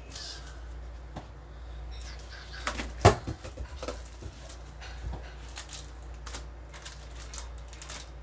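Scattered light clicks and one sharp knock about three seconds in, over a steady low hum.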